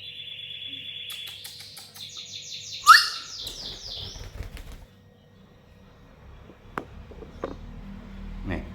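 Pet lovebird chattering in a rapid, rippling, high-pitched stream, stepping up in pitch about two seconds in, with one loud sharp chirp about three seconds in; it then falls quiet apart from a few short clicks.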